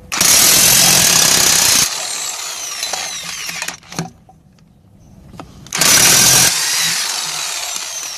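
Harbor Freight electric impact wrench hammering on a car's lug nuts in two bursts: a long one of nearly two seconds at the start, and a short one about six seconds in. After each burst the motor whines down, falling in pitch as it coasts to a stop.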